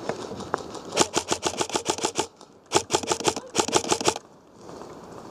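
Custom M4 airsoft electric gun (AEG) firing on full auto in three bursts, each a rapid string of cracks from the gearbox cycling. The first burst runs about a second and the next two are shorter.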